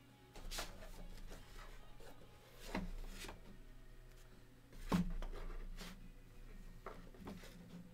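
Trading cards being handled on a tabletop: a handful of light taps and knocks, the loudest about five seconds in.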